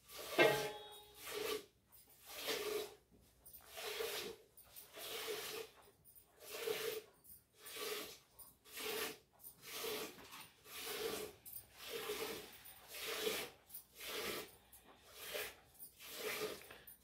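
A cow being milked by hand into a steel pail: squirts of milk hiss into the pail one after another in a steady rhythm, about three strokes every two seconds. One stroke right at the start is louder.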